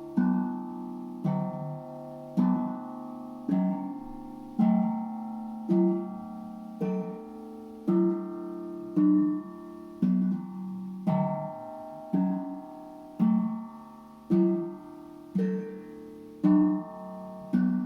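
Steel tank drum struck about once a second in a slow, steady pulse, each note ringing on over the next, the pitch changing from strike to strike.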